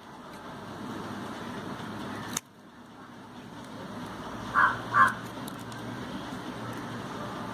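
Two short, loud bird calls, half a second apart, about two thirds of the way through, over steady background noise; a sharp click a little over two seconds in.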